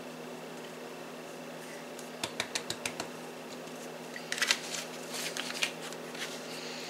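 Kitchen containers being handled as seasonings are added to a measuring cup: a quick run of about six small clicks, then a louder spell of clicking and rattling.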